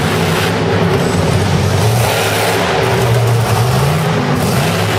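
Monster truck engine revving loudly, its pitch rising and falling as the truck accelerates across the dirt and pulls a wheelie.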